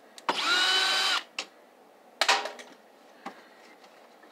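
Cordless drill-driver whining in a burst of about a second as it backs a screw out of a CRT monitor's plastic casing, then a second, shorter run about two seconds in that fades away.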